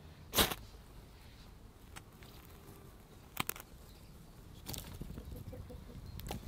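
Small kindling fire catching and beginning to crackle, with dense small pops from about five seconds in. Before that, two short sharp sounds: one about half a second in, the loudest, and a quick double one about three and a half seconds in.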